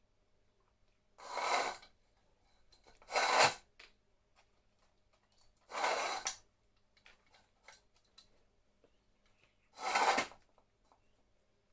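A cat food bowl scraping across the tile floor four times as two cats push it while eating, each scrape short and rasping, with faint clicks of eating in between.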